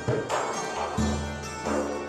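Frame drum and table zither playing together: deep hand-struck drum strokes about a second apart, with plucked zither notes ringing between them.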